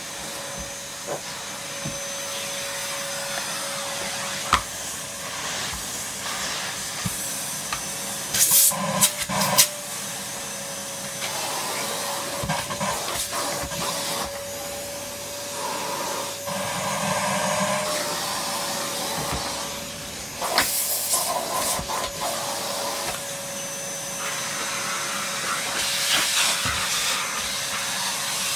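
Numatic Basil NB200 cylinder vacuum cleaner running, with a steady motor whine over the rushing of air. The suction sound rises and falls as the tool is worked, with brief sharp clatters twice, about 9 and 21 seconds in.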